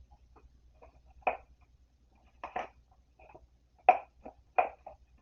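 Foil Pokémon booster pack and cards being handled, giving a few short, sharp crinkles, the loudest near the end.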